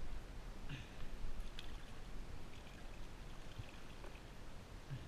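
Water trickling and dripping, with a few small soft splashes.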